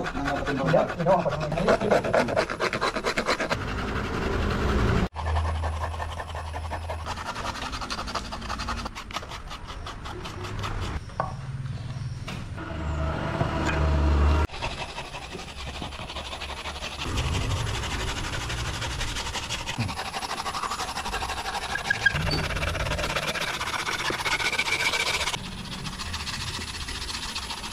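A steel wood rasp being stroked back and forth over carved wood, making rapid repeated scraping strokes, with a low rumble underneath at times.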